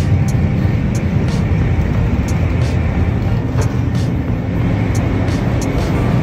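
Low, steady rumbling running noise of a moving vehicle, with faint clicks scattered through it.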